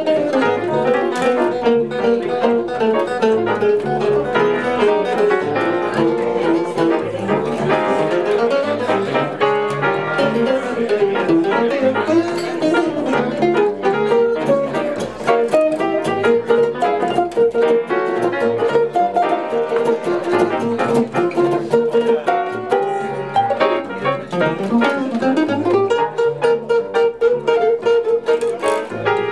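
Live jazz: a hollow-body archtop guitar plays a flowing solo line over upright double bass accompaniment.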